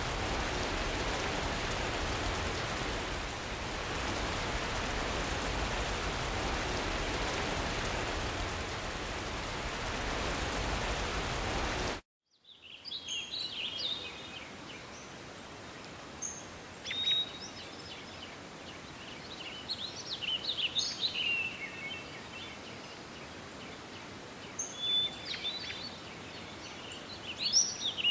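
A steady rushing noise, even across all pitches, that cuts off suddenly about twelve seconds in; after it, small birds chirping and trilling over a quiet outdoor background.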